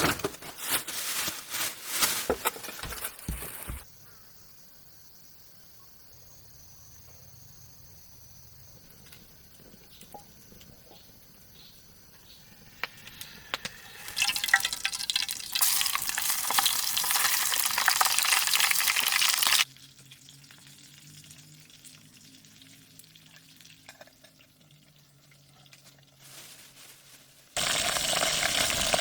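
Food sizzling as it fries, heard in several loud stretches that cut in and out, with quieter gaps between them.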